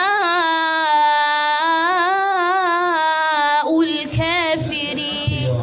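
A young woman chanting Qur'an recitation in a melodic tajwid style, drawing out the end of a verse in one long wavering held note for about three and a half seconds, then a few shorter melodic turns that stop near the end.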